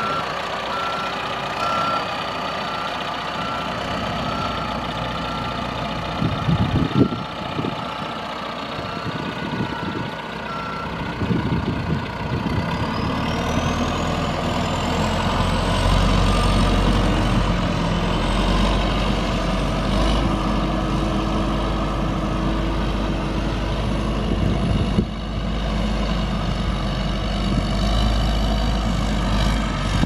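John Deere 310J backhoe's four-cylinder diesel running, with its reversing alarm beeping steadily for roughly the first ten seconds and a couple of knocks. About halfway through the engine works harder, with a high whine that rises and then holds.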